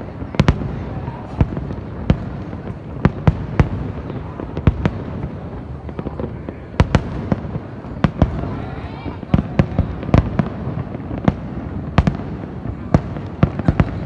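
Fireworks display: aerial shells bursting in quick, irregular succession, sharp bangs several times a second over a steady crackling rumble.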